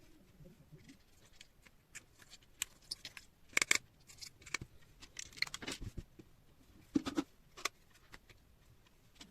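Slime being handled, making irregular sticky clicks, pops and short crackles, with the loudest clusters about halfway through and again near the end.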